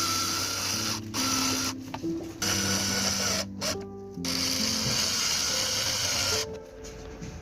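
A small motorised tool or motor running in stretches, stopping briefly three times and then cutting off near the end, over background music.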